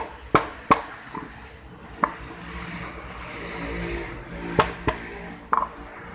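Rebuilt M130 manual transmission being shifted by hand: sharp metallic clunks as the selector moves and gears engage, three in the first second, then singly near two seconds, a quick pair about four and a half seconds in and one more near the end, with a rubbing scrape between them. The shifting is still hard going.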